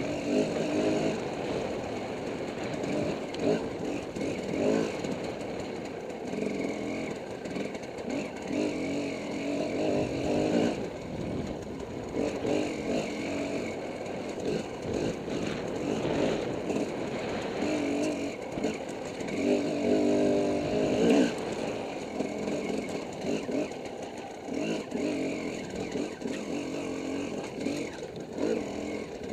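Dirt bike engine heard up close from the rider, revving up and down continuously as it is ridden along a rough trail, with occasional sharp knocks.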